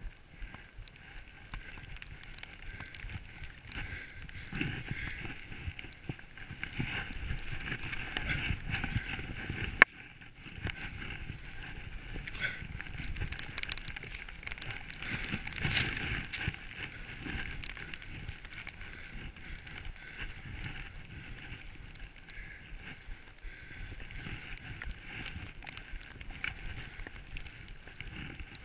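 Skis hissing and swishing through deep powder snow during a downhill run, with wind rushing over the camera microphone, the sound surging and easing with each turn. A single sharp click about ten seconds in.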